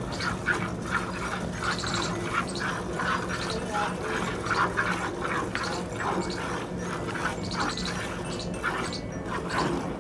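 Cow being milked by hand into a steel pail: quick, even squirts of milk hitting the pail, two or three a second.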